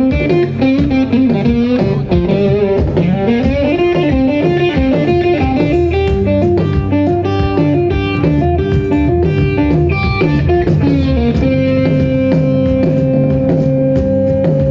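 Live rock band playing: an electric guitar lead with bending notes over bass and drums, settling into one long held note in the last few seconds.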